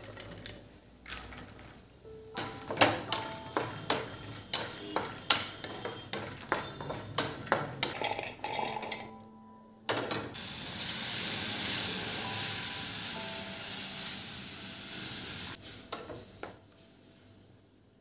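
Makhana (fox nuts) being stirred while they roast in an aluminium kadai, with a quick run of sharp knocks and scrapes against the pan. From about ten seconds in, an electric chopper grinds the roasted makhana with a steady noise that lasts about five seconds and then stops.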